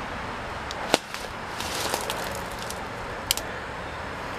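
Dry woody brush stems snapping and crackling as someone forces through a thicket, with one sharp snap about a second in and another a little past three seconds, and fainter twig cracks and rustling between them.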